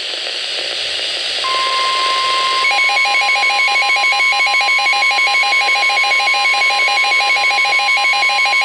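Weather radio receiving a NOAA Weather Radio warning alarm tone: static hiss, then the steady 1050 Hz alert tone comes on about a second and a half in. About a second later a second, rapidly pulsing beep joins in, about five or six beeps a second, sounding with the steady tone.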